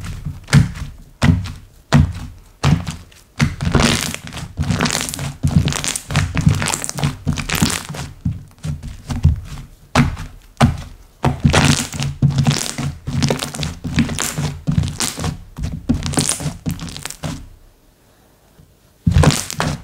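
Hands squishing, pressing and stretching slime, giving a dense run of sticky pops, clicks and soft thuds, with a short pause near the end.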